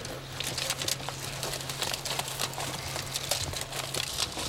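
Dry sticks and brush crackling and snapping as they are pulled apart and pushed aside by hand: a rapid, uneven run of small cracks and rustles.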